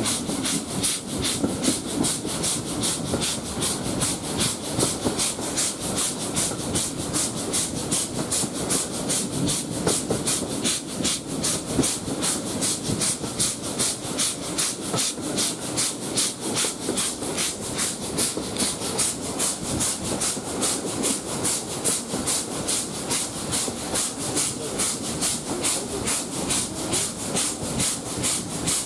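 S&DJR 7F 2-8-0 steam locomotive no. 53808 under way, its exhaust beating steadily at about four chuffs a second, heard from a carriage window along with the running of the train.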